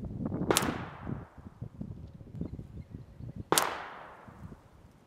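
Two shots from a Ruger 22/45 Lite .22 pistol firing CCI Mini-Mag hollow points, about three seconds apart, each a sharp crack followed by a fading echo. Wind rumbles on the microphone between the shots.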